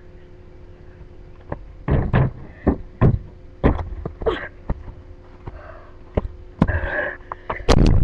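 Irregular knocks, thumps and rustling from a person moving about near the webcam, ending with loud bumps as the camera is handled, over a faint steady electrical hum.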